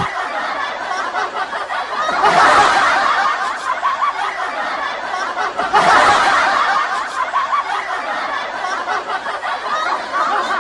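Laughter, swelling louder about two seconds in and again about six seconds in.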